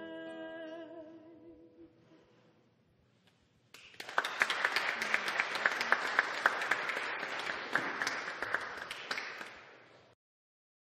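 A woman's singing voice holds a final note with vibrato and dies away over about two seconds. After a short hush, audience applause breaks out about four seconds in, individual claps standing out, and fades away near the end.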